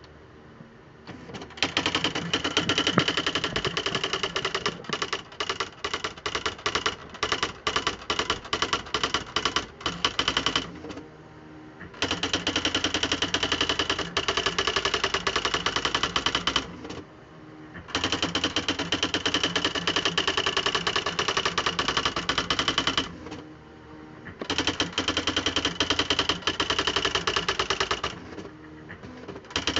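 Smith Corona Display Dictionary electric typewriter (model NA3HH) printing. Its typing element strikes in fast runs of several seconds, broken by short pauses.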